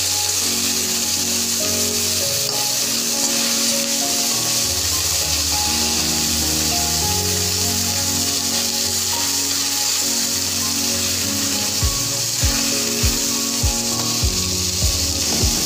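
Background music with held notes; a regular drum beat comes in about twelve seconds in. Under it runs a steady sizzle of small fish frying in oil.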